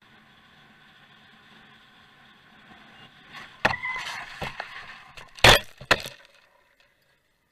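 Vehicle crash recorded by a dashcam: faint road noise, then, about three and a half seconds in, a string of heavy impacts and crunching as the camera is thrown about. The loudest blow comes about two seconds into the series.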